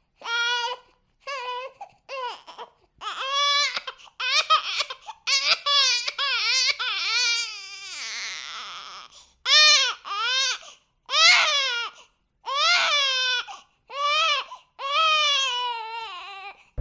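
A baby crying in a string of wails, each lasting well under a second to about a second with short gaps for breath. The pitch rises and falls within each wail, and one stretch in the middle turns breathy and rough.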